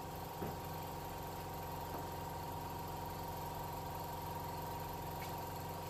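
Workshop piston air compressor running: a steady, even hum, with a faint knock or two.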